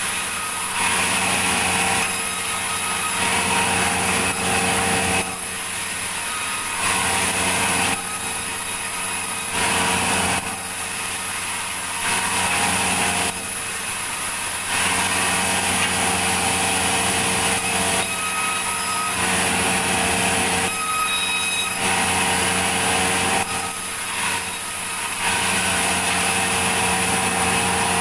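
Sawmill saw cutting a log, a steady machine hum under a louder, rougher sawing sound that swells and eases every one to three seconds.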